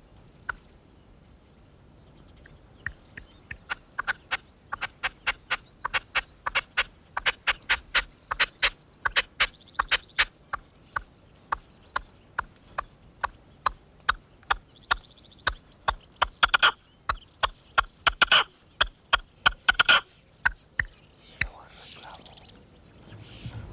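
Caged decoy male red-legged partridge calling: a long run of short, sharp, harsh notes, several a second, with some thin high squeaky notes mixed in. The calling starts a few seconds in, is loudest and densest through the middle, and stops about 21 s in. This is the breeding-season call used in decoy hunting to draw rival males.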